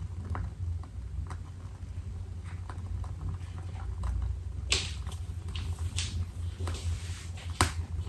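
Wooden wick of a crackle-wick candle crackling as it burns: irregular small pops, with a few louder cracks about halfway through and near the end, over a low steady hum.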